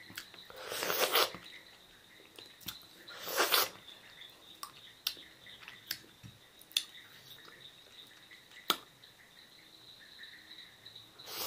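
A person eating small sohphie berries: wet mouth and chewing sounds, a couple of short breathy bursts and a handful of sharp clicks.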